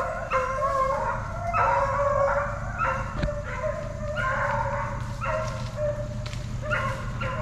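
A pack of deer hounds baying: long, drawn-out bawls about a second each, five or six in a row, several voices overlapping, with a steady low hum underneath.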